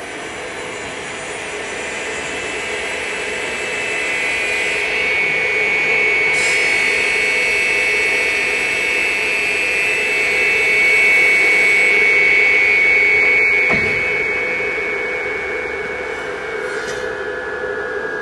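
Saw-blade head on a CNC router's spindle cutting a fibreboard sheet: a steady high whine from the spinning blade and spindle over cutting noise. It grows louder toward the middle, eases off after about fourteen seconds, and the whine steps down in pitch near the end.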